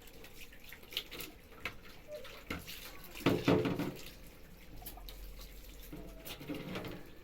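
Water running from a tap with splashing and scattered clinks as clothes are washed by hand, with a louder clatter about three seconds in.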